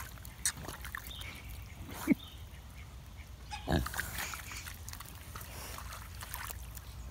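A pig grunting a few times, the strongest near two seconds and near four seconds, as it roots its snout in a muddy puddle, with small wet clicks from the mud.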